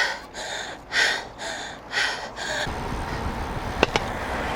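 A cyclist breathing hard, about five quick breathy puffs in the first two and a half seconds, then a steady low rumble of wind and road noise with a couple of sharp clicks.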